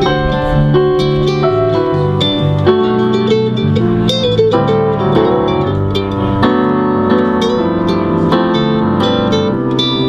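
A small band playing instrumental music: quick plucked-string notes over keyboard and bass.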